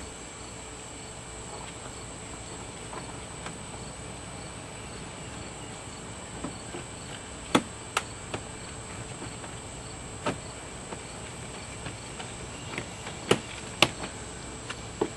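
Crickets chirping steadily in the background, punctuated by about five sharp clicks and taps in the second half as a screw is handled and fitted back into the car door.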